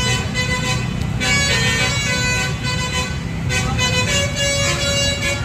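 Bus's telolet basuri horn playing a run of changing musical tones, several notes sounding together, over the low rumble of the bus's engine.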